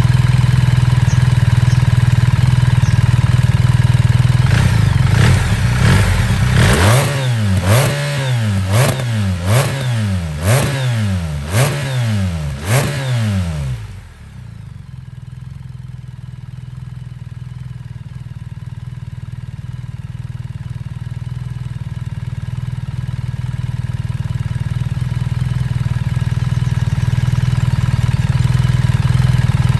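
BMW R1300 GS boxer-twin engine running through a Termignoni slip-on exhaust: steady idle, then about seven quick throttle blips, each rising and falling in pitch, in the middle. After the blips it drops suddenly to a quieter idle that grows gradually louder toward the end.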